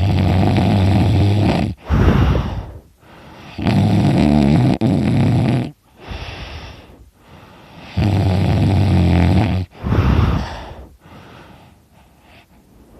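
A sleeping man snoring loudly: three long, low buzzing snores about four seconds apart, each followed by a short gusty breath, with softer breathing near the end.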